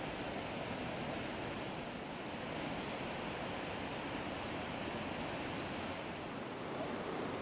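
A mountain stream swollen by a flash flood, with muddy floodwater rushing steadily over rocks and boulders.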